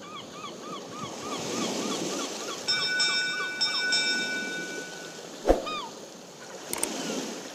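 Logo sound effects: surf washing under a run of short repeated bird chirps, about three a second, and a bell-like chime held for about two seconds. A sharp click, the loudest sound, comes about five and a half seconds in, like a mouse clicking a button.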